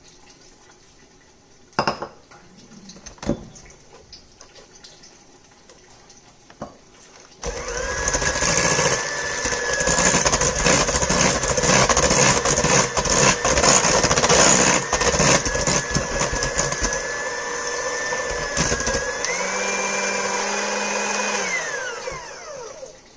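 Electric hand mixer beating an egg into creamed butter in a stainless steel bowl: the motor runs with a steady whine while the beaters rattle against the bowl. Near the end it is switched up a speed, the whine stepping up in pitch, then it winds down with a falling whine and stops. Before it starts, a few light knocks.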